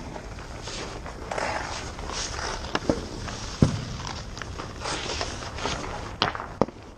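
Hockey skate blades scraping and carving on rink ice, with several sharp clacks of sticks and pucks. The loudest knock comes about three and a half seconds in.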